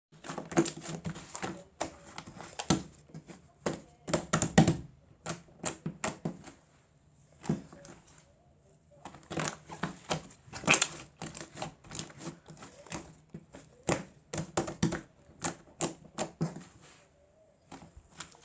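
Fluffy slime being pressed and squeezed by hand, giving irregular runs of sharp clicks and air-bubble pops with short pauses between handfuls.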